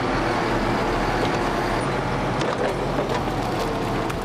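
Diesel engine and hydraulics of a forestry log-loading crane with a grapple, running steadily under work, with a whine that wavers in pitch in the second half.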